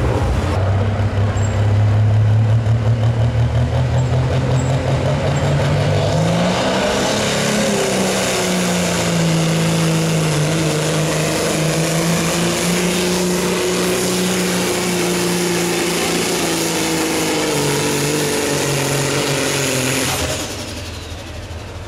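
Pro stock semi truck's diesel engine pulling a weight sled. Its revs climb about six seconds in and hold high under load, with a high turbo whistle, then drop off about a second before the end.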